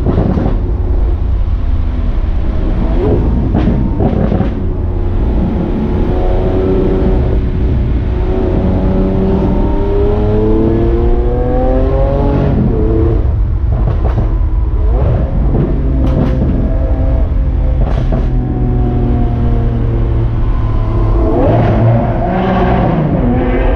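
Lamborghini Aventador S Roadster's V12 engine running on the move with a steady low rumble. The revs climb in a long pull through the middle and again near the end, each climb breaking off and dropping back.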